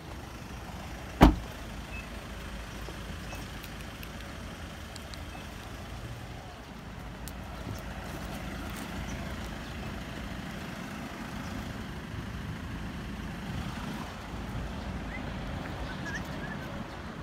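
A car door slams shut once, sharply and loudly, about a second in, followed by a steady low outdoor rumble.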